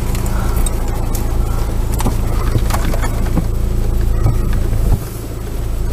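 Car engine and road noise heard inside the cabin: a steady low hum with a few faint knocks, dipping slightly about five seconds in.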